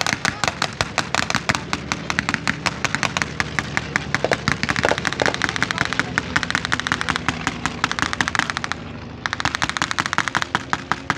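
Rapid staged machine-gun fire, a long crackling run of sharp shots many times a second that breaks off briefly near the end and then starts again, with aircraft engines droning underneath.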